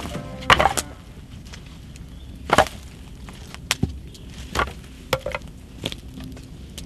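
Dry branches being laid onto a stack of firewood, knocking sharply against each other, about six wooden knocks at irregular intervals.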